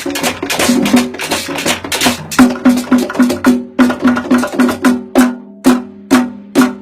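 Percussion-led music: quick, uneven drum strokes and sharp wood-block-like clicks, with a pitched drum tone under them.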